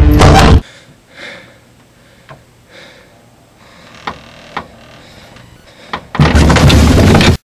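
Loud distorted rock music cuts off suddenly, leaving a hushed stretch with a few faint knocks and soft rustling sounds. About six seconds in, a loud burst of harsh noise lasts just over a second and stops dead.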